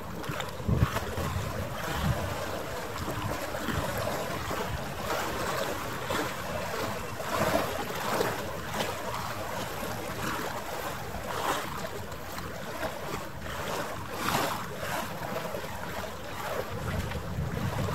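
Wind buffeting the microphone over water washing, with a few brief louder swells.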